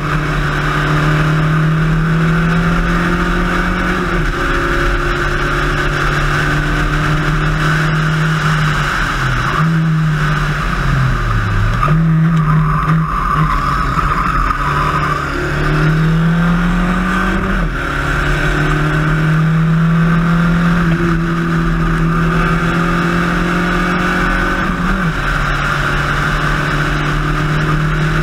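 In-car sound of a Spec Racer Ford's four-cylinder engine at racing speed, with a steady rush of wind and road noise. The engine note climbs and drops sharply on an upshift about four seconds in, falls and wobbles with throttle blips through a braking and downshift zone in the middle, then climbs again with two more upshifts later on.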